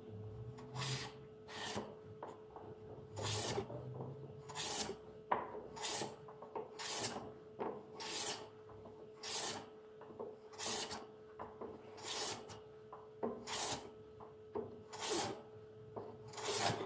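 Hand sanding a wooden dovetail joint with a sanding block: about thirteen rasping rub strokes across the wood, roughly one every second and a quarter, in an even rhythm.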